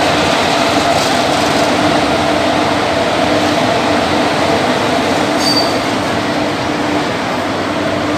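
WAP-4 electric locomotive and ICF passenger coaches rolling slowly past, a steady rumble of wheels on rail with a low hum that keeps cutting out and coming back. A brief high squeak about five and a half seconds in.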